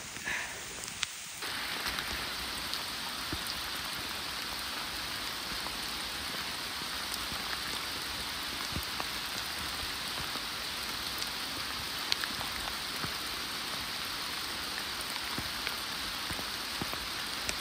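Steady rain falling, with scattered drops ticking close by, starting about a second in.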